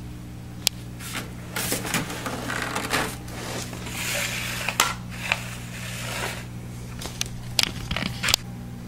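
Hands working on a steel PC case: sharp clicks and knocks, with stretches of scraping and rustling, over a steady low hum.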